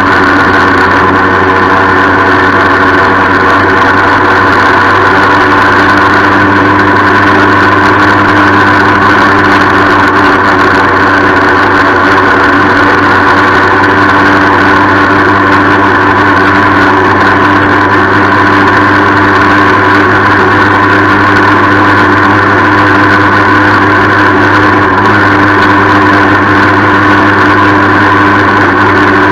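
1976 Yamaha FS-1 DX moped's 49 cc two-stroke single-cylinder engine running at a steady speed under way, with a rattle over it. The owner says the engine does not run as smoothly as it should.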